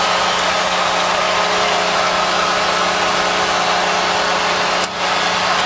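Hockey arena crowd cheering for the home team's overtime winning goal: a loud, steady roar with a steady low tone held underneath. It dips briefly just before the end.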